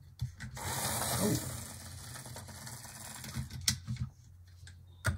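Tyco HO-scale ALCO Century 430 model locomotive's PowerTorq motor and gears whirring as it runs along the track, with a few clicks. The motor is louder for about the first second and a half, then settles to a steady hum; it shows some stiction from sitting a while.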